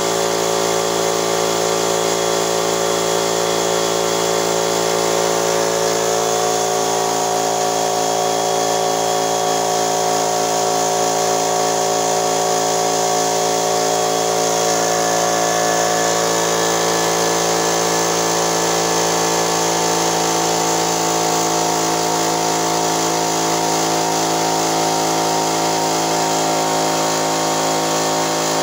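Husky 1.5-horsepower, 3-gallon portable air compressor running steadily, its pump filling the tank as pressure builds from about 75 to 100 PSI.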